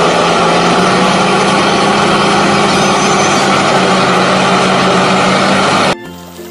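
Diesel engine of a tandem-drum asphalt road roller running steadily as the roller drives over fresh asphalt, cutting off suddenly near the end.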